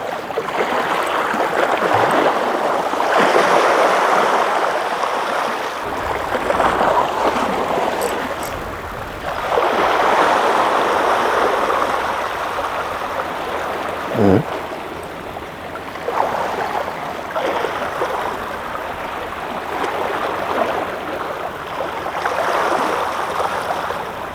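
Sea water washing and surging against the shore, swelling and falling away every few seconds. A short rising squeak stands out about halfway through.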